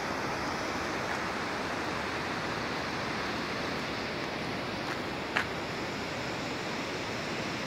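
Steady road and wind noise inside a moving vehicle, with one short click about five and a half seconds in.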